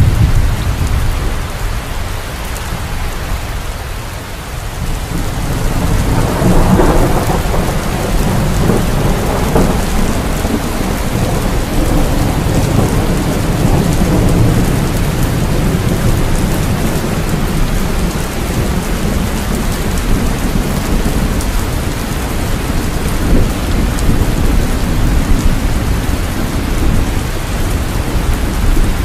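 Steady rain with a deep rumble of thunder. The rumble dips a few seconds in, then swells again about six seconds in and rolls on.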